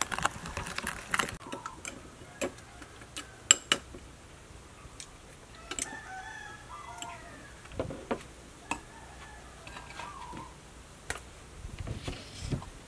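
A metal spoon clinks and ticks against a small glass bowl while stirring chili dipping sauce, a string of sharp light clicks in the first few seconds. Later, birds call in short bursts, with a few scattered knocks.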